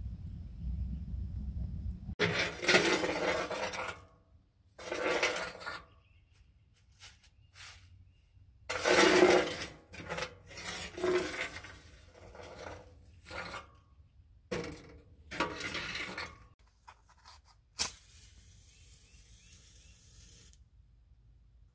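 A low rumble of wood burning in a small steel tent stove, then ash being scraped out of the stove's steel firebox into an aluminium tray: a run of metal scrapes and clinks. There is a single sharp click near the end.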